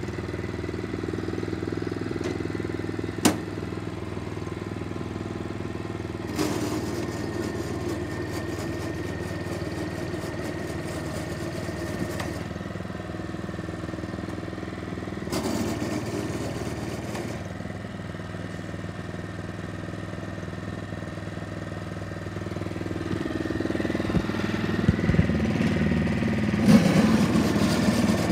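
The small engine of a WADO FS403 walk-behind spreader running steadily just after start-up, with a single sharp click about three seconds in. It gets louder for the last few seconds.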